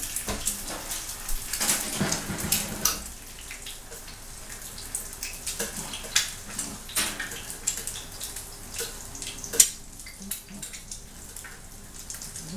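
Slices of bread frying in a pan, sizzling with irregular crackles and pops, with clicks of metal tongs against the pan as the slices are flipped. A single sharp click about three quarters of the way through is the loudest sound.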